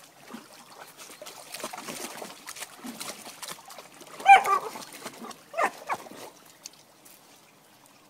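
A dog splashing and wading in a shallow stream, with water trickling and slapping. About four seconds in it gives a loud, high squeaky whine, then two shorter squeaks a second or so later.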